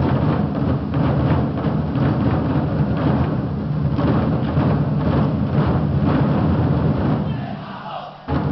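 A 24 Festive Drums ensemble of large Chinese drums beaten together in a dense, rapid, thundering roll. It dies down about seven seconds in, then a sudden loud stroke brings the drums back in just before the end.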